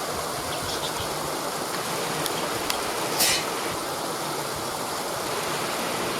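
Waterfall rushing steadily. A brief high hiss comes a little over three seconds in.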